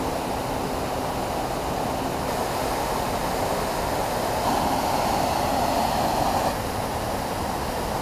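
Steady rush of a waterfall cascading down a rock face into a plunge pool, its tone shifting slightly a couple of times.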